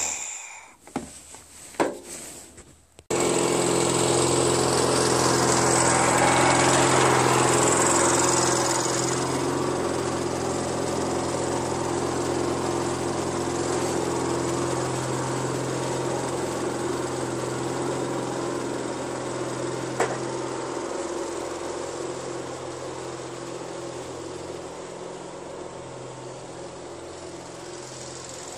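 A few brief knocks, then a Craftsman riding lawn tractor's engine running steadily as it drives off, gradually fading as it moves away.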